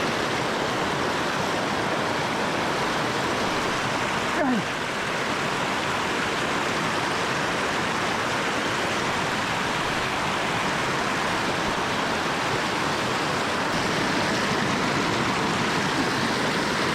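River water rushing steadily, with a brief falling squeak about four seconds in.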